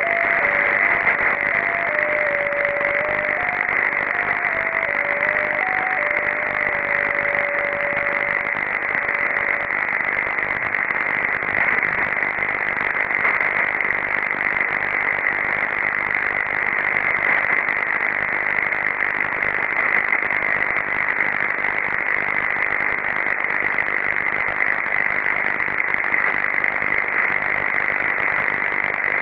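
Shortwave receiver tuned in CW mode to 7077.5 kHz, picking up an unidentified melody signal: a simple tune of single beeping tones hopping between a few pitches over steady band hiss. The tune stops about ten seconds in, leaving only the receiver hiss.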